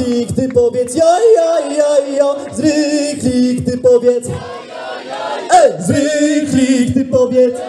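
Loud live dance music through a stage PA: a steady kick drum about twice a second under held synth notes, with a crowd's voices singing along.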